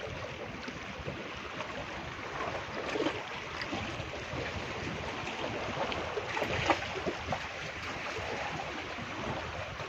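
Small sea waves washing and lapping against breakwater rocks in a steady wash, with a sharper splash about three seconds in.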